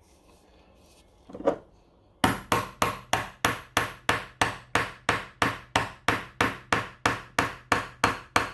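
A hammer striking the handle of a screwdriver, driving it into the lid of a seasoning jar to punch a hole and force the stuck lid open. It is a rapid, even series of sharp knocks, about four a second, starting about two seconds in.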